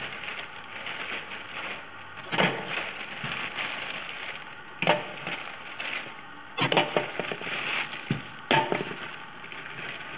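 Dry, hard bread rolls knocking and crackling as they are dropped and handled in a stainless-steel bread mill's hopper: about four sharp knocks, each with a short crackly rattle after it.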